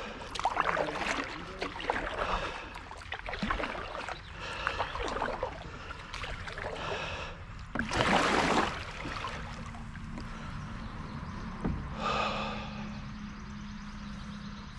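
Kayak paddle strokes dipping and splashing in pond water, several in a row, the loudest about eight seconds in.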